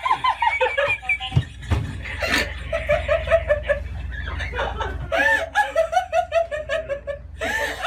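A person laughing hard in quick, repeated "ha" pulses, two runs of them, over a steady low hum.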